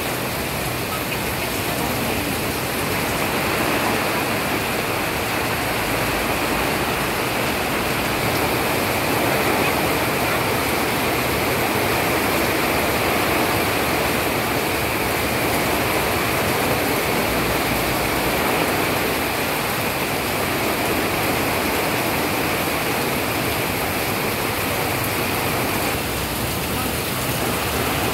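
Heavy rain falling: a steady, even noise that holds without a break.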